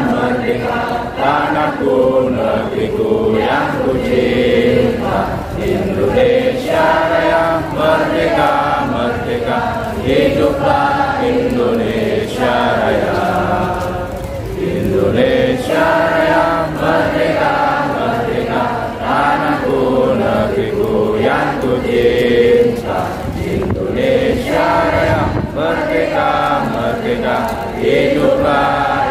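A group of men chanting an Islamic devotional chant in unison, amplified over a PA sound system, in long sung phrases with short pauses between them.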